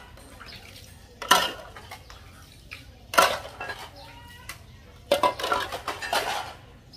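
Dishes being washed by hand in stainless-steel basins of water: ceramic plates and steel bowls clinking against each other and the basin. There is a sharp clink about a second in, another about three seconds in, and a run of clinks near the end.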